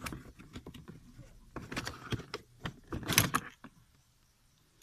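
Rustling and clattering of pressure-washer parts being pulled out of a cardboard box by hand: plastic knocking against cardboard and the coiled rubber hose being lifted out. A quick run of knocks and rustles a little past halfway is the loudest, then it goes quiet near the end.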